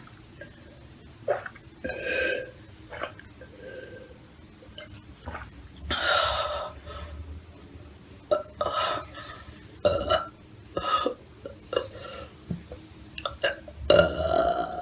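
A person burping repeatedly: a string of separate burps, the longest about six seconds in and the loudest near the end.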